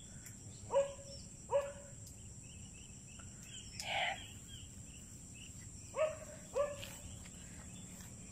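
Steady high-pitched insect buzz, broken by an animal's short calls that slide down in pitch into a brief held note. The calls come in two pairs, about a second in and again about six seconds in.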